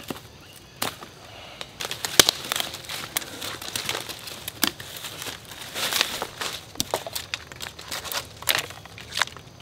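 Dry leaf litter rustling and crackling under hands and feet, with irregular sharp twig snaps, as someone works at the base of saplings on the forest floor. The rustling grows busier about two seconds in.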